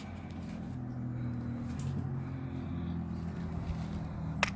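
A steady low engine drone from a distant motor vehicle, its pitch shifting slightly partway through, with one sharp click near the end.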